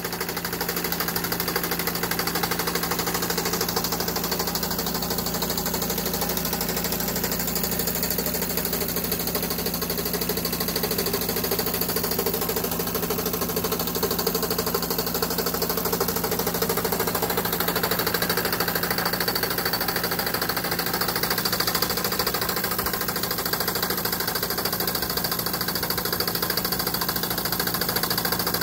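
Toy model steam engines running together: a fast, steady mechanical clatter and chuff over a steady low hum.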